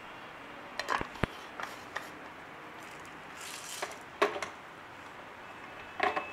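Handling knocks and clicks of a plastic grinder jar and a glass plate as the jar is fitted onto a Jackpot electric blender base, with a brief rub about midway; the motor is not yet running.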